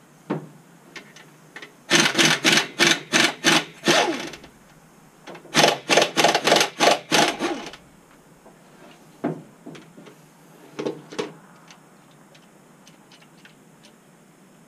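Power ratchet run in two bursts of about two seconds each, a rapid pulsing rattle, loosening connecting-rod bolts on a 6.4 Hemi short block. A few light metal clinks of tools come before and after.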